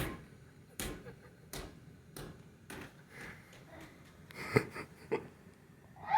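A ball bouncing on the floor indoors: a run of thumps roughly once every second or less, with a few quicker, sharper knocks past halfway.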